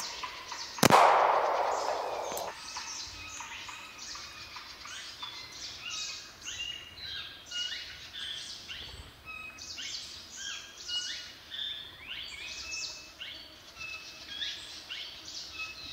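A single gunshot about a second in, its report dying away over a second or so. After it, many small birds chirp and whistle in quick, short calls.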